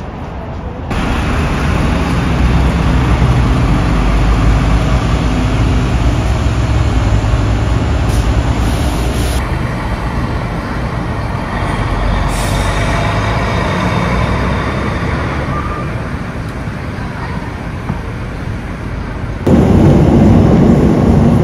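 Road traffic at a station bus rotary, with buses and cars running. The sound changes abruptly about a second in and again about nine seconds in, and near the end a louder low rumble comes in.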